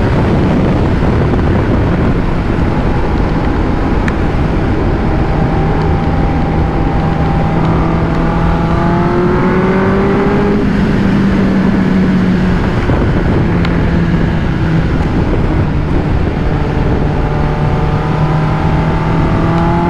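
Sport motorcycle engine running in fifth gear at highway speed under a heavy rush of wind, its note easing slowly downward as the bike slows.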